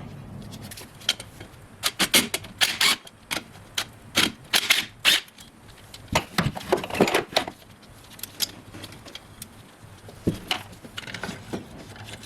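Irregular clicks, knocks and rattles of plastic clips and parts being worked loose by hand, busiest in the first two-thirds and sparser near the end.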